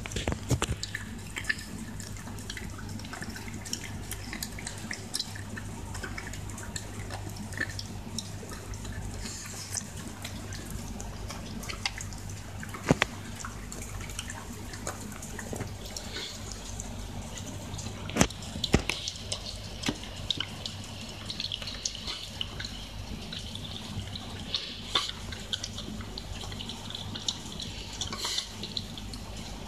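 Shiba Inu eating wet, beef-filled dog food from a stainless steel bowl: continuous wet smacking and lapping, with a few sharper clicks along the way.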